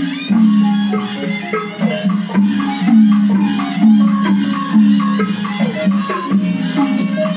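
Traditional Burmese music for a marionette dance: quick struck notes, some sliding in pitch, in a steady rhythm over a sustained low tone.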